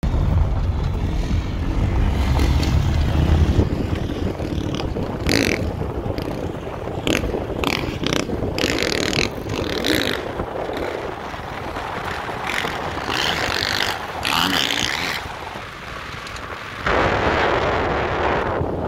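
Enduro motorcycle engine revving in repeated surges as the bike is ridden over grass, with wind buffeting the microphone.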